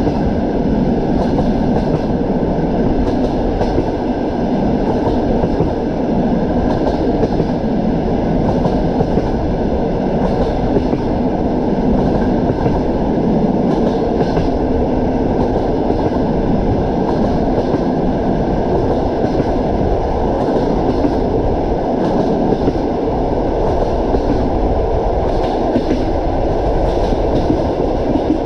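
Train wheels clattering over the rail joints, with a steady, loud running rumble and scattered faint clicks.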